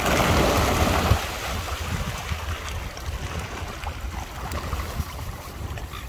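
A flock of Eurasian coots splashing and scrambling across the water as they rush for food, a loud burst of splashing in the first second that settles into a lower steady wash. Wind rumbles on the microphone throughout.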